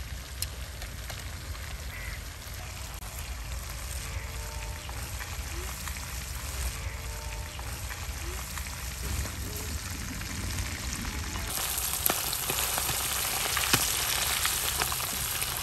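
Rohu fish steaks frying in hot oil, a steady sizzle that gets louder about eleven seconds in. A few sharp clicks of metal tongs sound over it.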